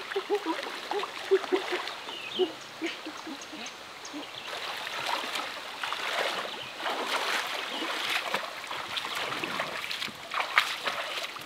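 Water splashing and sloshing as people wade through a shallow, rocky river, over the steady rush of the stream. A few short vocal sounds come near the start.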